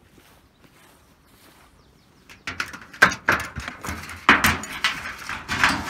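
Rustling and scraping: footsteps through tall grass and brushing against a wooden beehive, loud from about two and a half seconds in.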